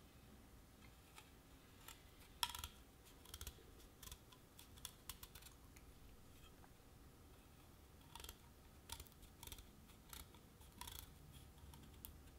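Kitchen knife paring the thin brown inner skin off a shelled raw chestnut: faint, crisp clicks and short scrapes as the blade cuts through the skin, coming in irregular clusters, the sharpest about two and a half seconds in.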